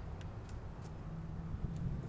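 Low, steady outdoor background rumble with a few faint clicks.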